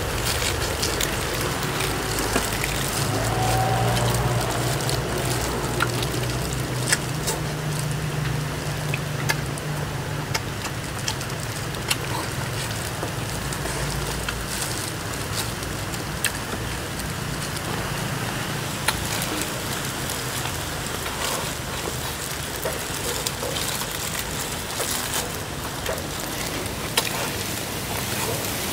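Steady rain-like hiss with scattered small clicks, and a low hum from about three to fourteen seconds in.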